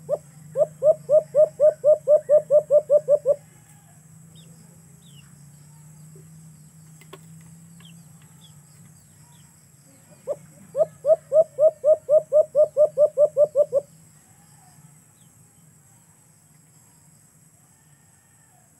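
A dove calling in two runs of quick, evenly spaced hoots, about four a second. Each run is about fourteen notes over some three seconds, and the second comes about ten seconds in.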